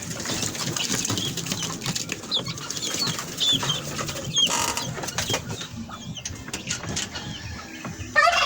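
Farmyard poultry calling: short high chirping calls over a background of clattering and scuffling. A louder call starts near the end.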